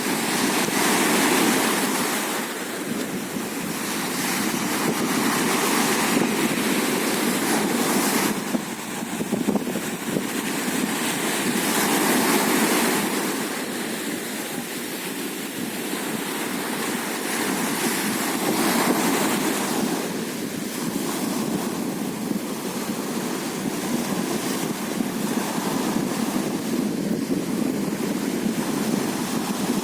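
Sea surf washing onto a beach, a steady rush that swells and fades every several seconds as waves break and run out.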